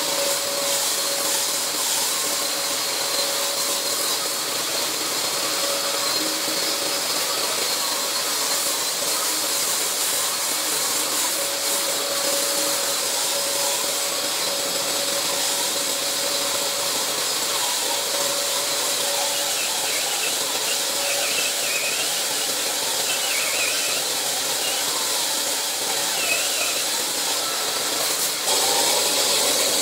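Makita DSL801Z cordless long-reach drywall sander running steadily against a plastered wall, a constant motor whine under the hiss of the sanding pad and its dust-extraction suction. Near the end the sound changes and gets a little louder.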